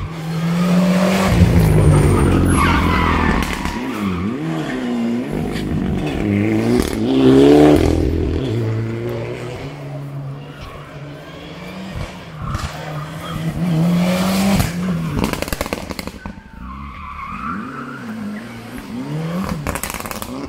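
Rally car engines under hard acceleration, pitch climbing and dropping again and again through gear changes as cars pass, loudest about two, seven and fourteen seconds in, with sharp cracks and pops in between.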